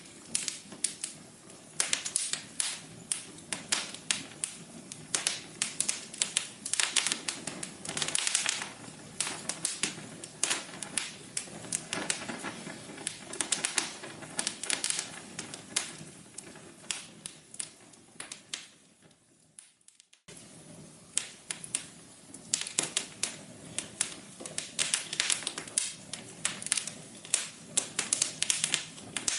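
Wood fire crackling, with many sharp irregular pops and snaps over a low hiss. About two-thirds through, the crackling dies away for a moment, then starts again suddenly.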